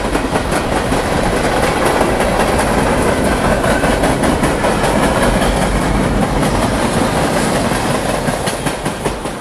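A freight train's boxcars and flatcars rolling past close by, the wheels clacking over the rail joints above a steady rumble. The last cars go by and the sound begins to fade near the end.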